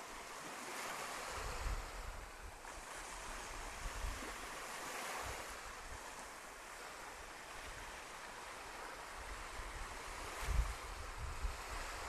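Small waves washing and hissing onto a sandy beach in slow swells, with gusts of wind buffeting the microphone as low rumbles, the strongest about ten seconds in.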